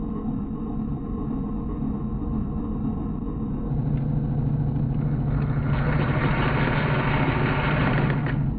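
A motor starts humming steadily a few seconds in, joined by a whirring hiss, and both cut off suddenly near the end, over a constant low rumble.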